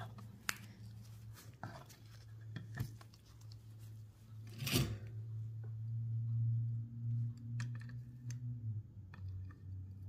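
Light clicks and taps of a stained-glass piece and metal tools being handled on a workbench, with one sharper knock about halfway through. A steady low hum runs underneath, louder in the middle, and drops in pitch near the end.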